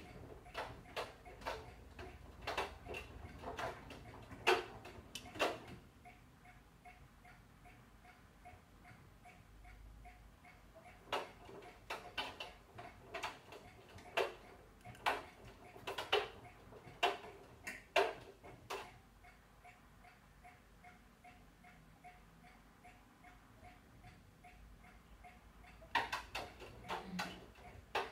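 Bosch Serie 8 front-loading washing machine tumbling its load: sharp clicks and knocks, one to two a second, in three bursts separated by pauses of several seconds, as the drum turns one way, stops and turns again.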